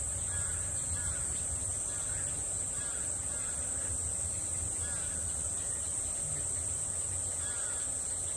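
Steady high-pitched drone of insects, unbroken throughout, over a low background rumble.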